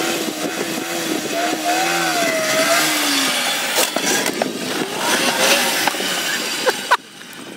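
Supercharged 49cc four-stroke single of a Honda Monkey Z50 pit bike revving, its pitch rising and falling, then running rougher. A sharp knock comes near the end, and the sound drops away abruptly.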